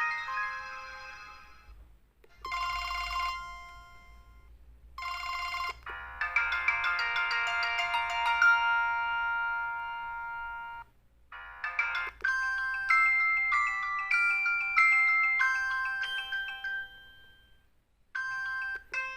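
Samsung SCH-F309 phone's speaker playing its built-in polyphonic MIDI tones from the CMX synth, one short melody after another with brief gaps. There are two quick chimes, then a longer held chord and a stepping tune, and a new tone begins near the end.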